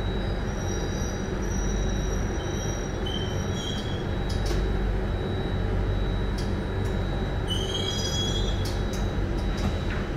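SMRT Circle Line C830 train running, heard from inside the car: a steady low rumble, with the wheels squealing in thin high whines that come and go. A few sharp clicks come about four seconds in and again near the end.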